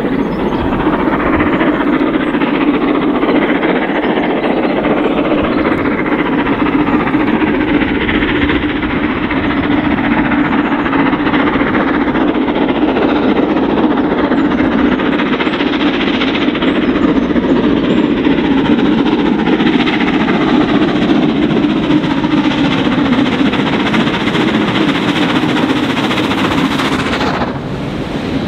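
Steam locomotive working hard at speed, hauling a train of coaches, its exhaust beating under load over the rumble of wheels on the rails.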